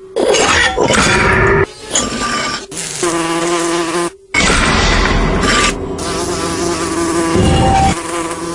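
Buzzing wings of a fly in flight, wavering in pitch and breaking off briefly several times.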